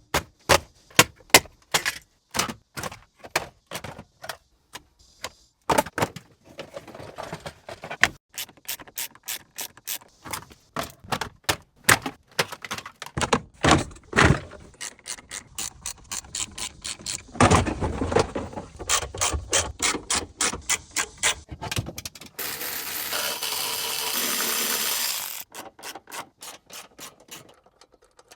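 Rapid runs of sharp, ratchet-like clicks from a car's center console being taken apart with hand tools. About 22 seconds in, a steady hiss lasts a little over three seconds.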